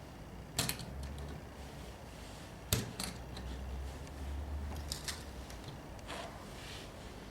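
A metal rifle case being handled, giving sharp mechanical clicks and knocks: two loud ones, about half a second and nearly three seconds in, then a few lighter clicks.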